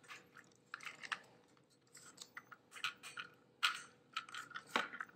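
Plastic parts of an Anker dashboard and windshield phone mount handled and clicked together: scattered small clicks and rattles, the sharpest about three and a half seconds in.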